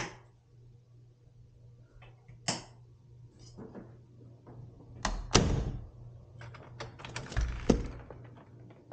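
Interior door handling: a latch click, then a door knocking open with a heavy thud about five seconds in, followed by a quick run of clicks and knocks.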